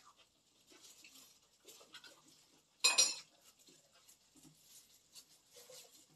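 Quiet tableware and food-handling sounds: small clicks of dishes and cutlery and soft rustling, with one louder, sharp clatter about three seconds in.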